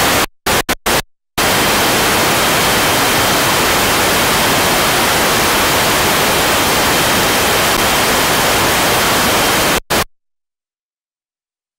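Loud static hiss that cuts in and out abruptly: a few short bursts in the first second, then a steady hiss for about eight seconds with a faint high tone running through it, ending suddenly. It sounds like a fault in the audio track rather than anything at the scene.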